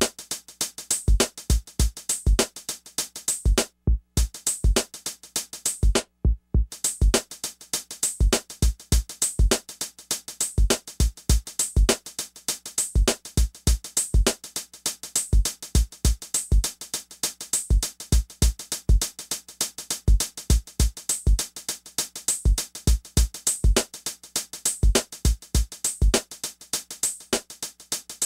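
Electronic background music with a steady drum-machine beat: punchy kicks and crisp hi-hats, cutting out briefly twice a few seconds in.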